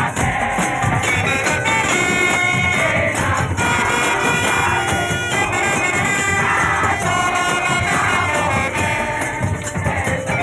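Live music: a melody over busy percussion with a steady beat, with singing.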